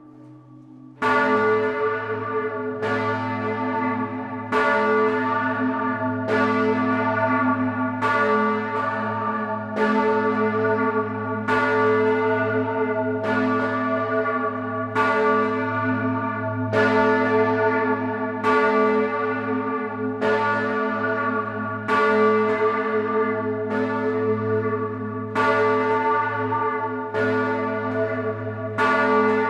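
Large bronze church bells (Grassmayr, Innsbruck) swinging and ringing, heard close up in the bell tower. A fading hum gives way about a second in to regular clapper strikes, roughly one a second, each ringing on over a steady deep hum.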